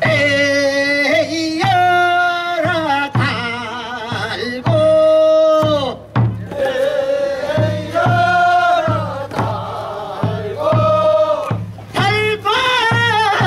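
Korean traditional folk singing (sori): a voice holds long notes that waver and slide in pitch, with short breaks between phrases, over a low, regular beat.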